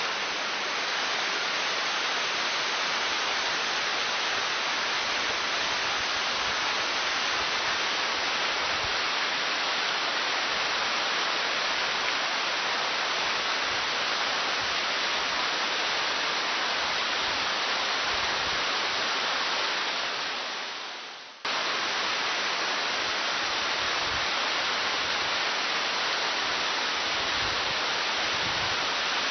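Waterfall rushing steadily. The sound fades down about two-thirds of the way through, then cuts straight back in at full strength.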